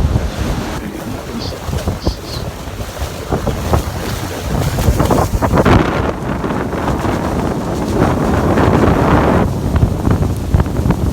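Wind buffeting the microphone over the steady roar of Niagara Falls' rushing, crashing water, with gusts swelling and easing.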